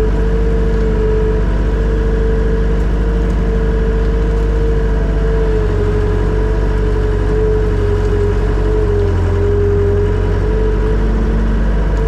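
Skid steer's diesel engine running steadily, heard from inside its cab: a deep rumble with a steady mid-pitched whine over it that wavers slightly.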